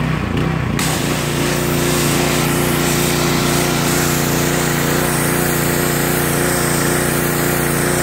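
3000 PSI pressure washer running steadily; about a second in its spray starts with a loud hiss as the jet strips old bottom paint off a fiberglass boat hull.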